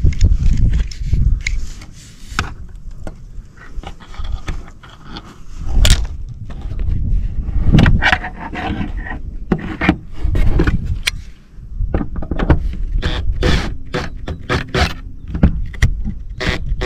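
Handling noise on a metal roof sheet: scrapes, clicks and knocks of hands and a chalk-line reel as the line is hooked onto a screw head. There is a low rumble at first, and a rapid run of short clicks near the end.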